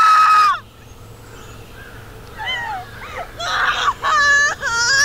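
A woman screams, a held high cry that breaks off about half a second in. From about halfway through she cries in high, wavering wails.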